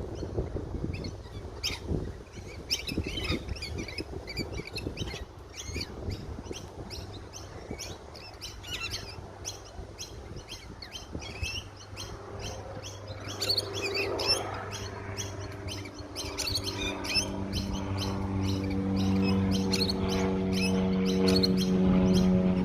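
Many birds chirping and twittering in quick, overlapping calls. From about halfway a steady held tone swells in underneath and grows louder toward the end.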